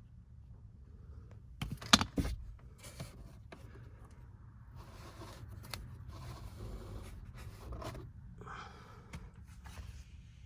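Hands working plastic car-interior parts and a cabin air filter: a few sharp plastic clicks about two seconds in, then irregular scraping and rustling.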